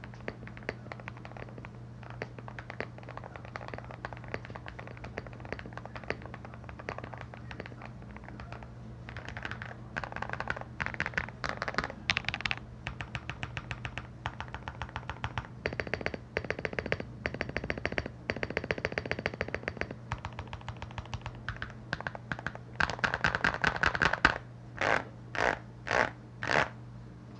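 Typing on a modded Akko ACR81 mechanical keyboard with lubed Akko Matcha Green linear switches, tape-modded and with tuned, lubed Durock stabilizers: a stream of key clacks, spaced out at first, quickening into fast runs about a third of the way in, with four short rapid bursts near the end.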